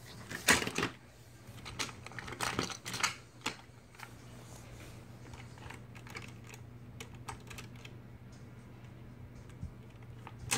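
Handling noise: a quick run of sharp clicks, taps and rubbing in the first few seconds, then only a few faint ticks over a steady low hum.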